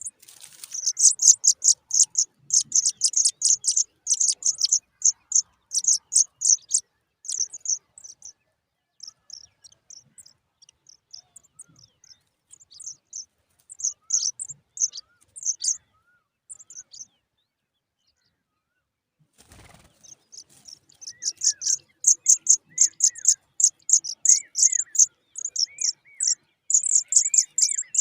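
Pipit nestlings begging with fast runs of short, high-pitched cheeps, several a second. The cheeping thins out midway and stops for about two seconds, then starts again loudly after a soft knock. A few lower, falling chirps join near the end.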